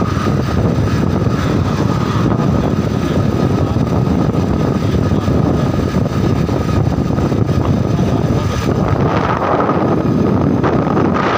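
Steady rush of wind and road noise on a moving motorbike, with a thin steady whine running under it.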